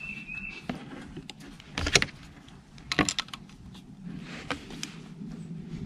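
Metal clicks and clinks as a galvanized steel nipple is hand-threaded into a brass ball valve, with two sharper knocks about two and three seconds in.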